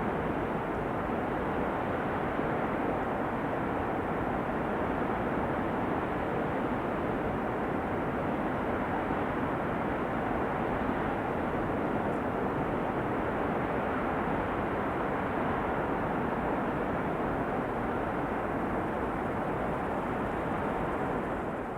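Steady rush of flowing river water, an even, unbroken noise that begins to fade out right at the end.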